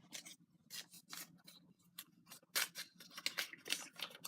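Small folded paper slips rustling and scraping, in short irregular strokes, as they are rummaged through and one is unfolded.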